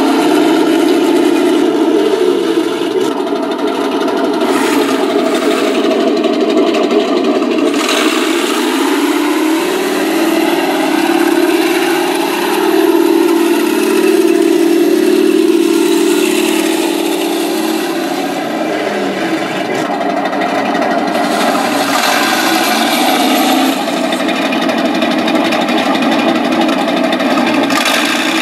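Benedini sound module playing a Panther engine sound: a steady idle whose revs rise about a third of the way in, hold there for several seconds, then drop back to idle.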